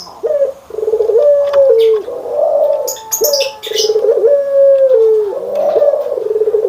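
Puter dove (domestic ringneck dove) giving its cooing call (anggungan), about three phrases in a row. Each phrase is a rolling, trilled start followed by a long coo that steps down in pitch. A few short high chirps sound about three seconds in.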